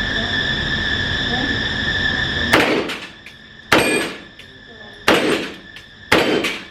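Four gunshots from a firearm at a shooting range, fired about one a second, starting a couple of seconds in, each a sharp crack that dies away quickly. Before the shots there is a steady high whine with hiss.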